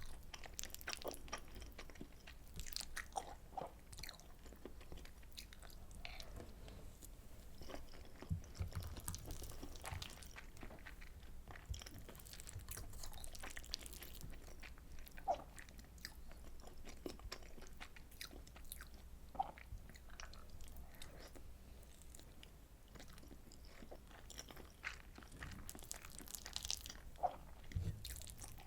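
A person chewing and biting mouthfuls of soy sauce butter egg rice, with irregular sharp clicks and wet mouth sounds.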